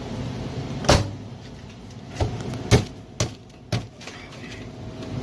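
Five sharp knocks on PVC pipe fittings, most likely as they are pushed and struck into place. The first and third knocks are the loudest, and the knocks come closer together in the second half, over a steady low hum.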